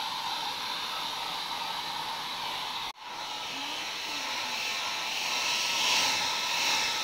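Hand-held hair dryer blowing steadily on a wet cocker spaniel puppy. The sound cuts out for an instant about three seconds in, then comes back and grows a little louder.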